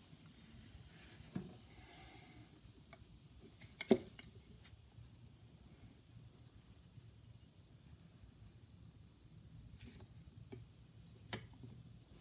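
Small metal parts of a phonograph hydraulic lid support knocking and clinking as they are handled and set down on a wooden workbench: a few short, sharp clicks, the loudest about four seconds in, with faint rustling of a paper towel between them.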